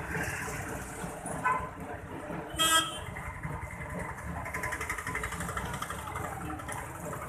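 Vehicle horn tooting twice, about a second apart: a short, faint toot, then a louder, slightly longer one. Under it runs steady street noise.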